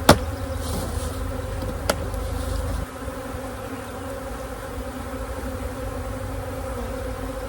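Swarm of package honeybees buzzing in a steady hum around an open hive. A sharp knock comes right at the start and a lighter one about two seconds in.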